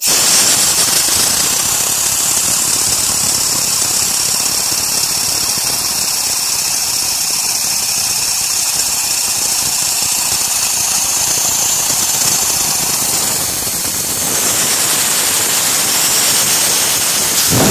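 Compressed air from a blow gun rushing into a homemade Tesla-style bladeless disc turbine, a loud steady hiss mixed with the mechanical whir of the spinning disc rotor. It starts abruptly and eases briefly about fourteen seconds in.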